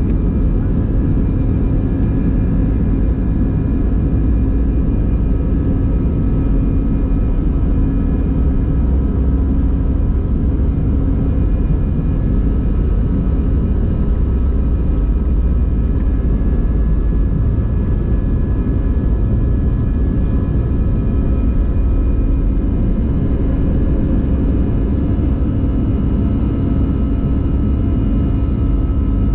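Airbus A320's jet engines at takeoff thrust, heard from inside the cabin: a steady loud rumble with several high, steady fan tones over it, as the aircraft rolls down the runway and lifts off into the climb.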